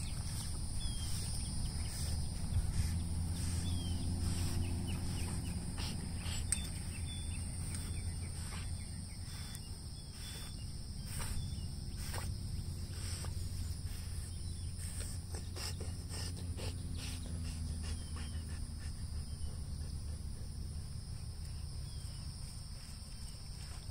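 Outdoor summer ambience: a steady drone of insects, a low hum beneath it, faint bird chirps, and scattered light clicks.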